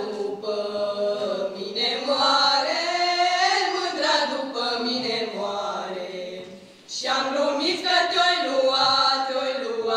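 Women's vocal group of four singing a Romanian folk song together, unaccompanied, with a short break between phrases about two-thirds of the way through.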